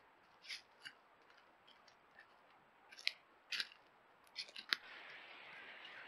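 Roe deer buck's footsteps on dry leaf litter: scattered sharp crackles and crunches, the loudest a few seconds in. A steady faint hiss sets in near the end.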